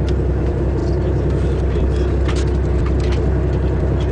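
Fishing boat's engine running with a steady low hum, with a few faint clicks about two to three seconds in.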